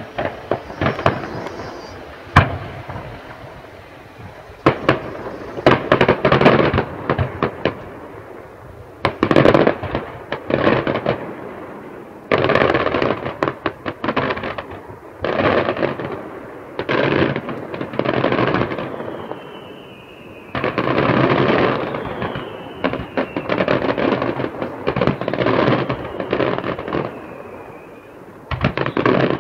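Fireworks display going off: repeated clusters of bangs and crackling bursts every second or two, with faint falling whistles a few times in the second half.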